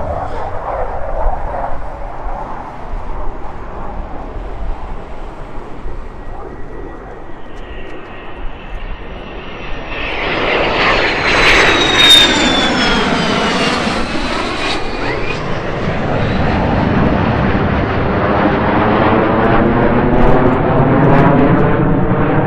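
Military fighter jet's engine passing close by: the noise builds from about ten seconds in, with a high whine that falls in pitch as the jet passes, and stays loud afterwards.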